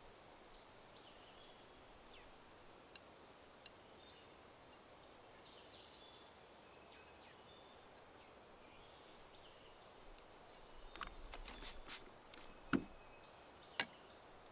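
Quiet outdoor background with faint bird chirps throughout. A couple of small clicks come early, a cluster of clicks comes near the end, and then two sharp knocks follow about a second apart, the first with a short low ring.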